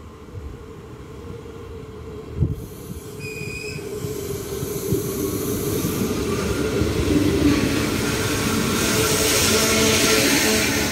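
Trenord ALe 582 electric multiple unit running into the station and past along the platform, its wheels rumbling on the rails and growing steadily louder as it comes alongside. There is a low thump about two and a half seconds in and a short high squeal just after.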